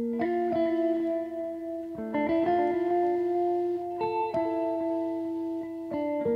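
Background music: a plucked guitar tune, its notes changing about every two seconds.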